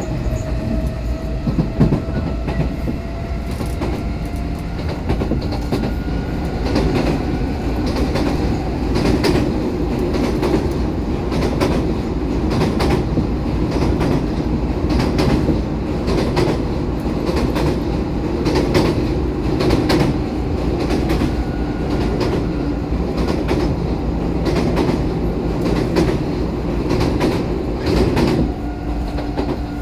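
Odakyu 4000-series electric train running at speed, heard from inside the car: a steady rumble with wheels clicking over rail joints and a thin steady whine.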